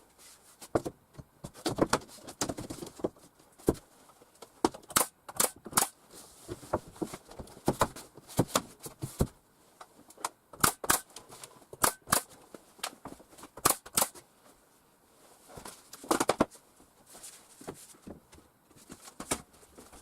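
Irregular sharp knocks and clicks, singly and in quick runs, from fastening wooden tongue-and-groove lining boards to a ceiling.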